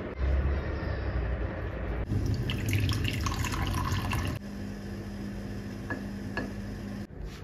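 Water poured from a steel kettle into a ceramic mug, splashing for a couple of seconds, then a few light taps of a wooden spoon against the cup.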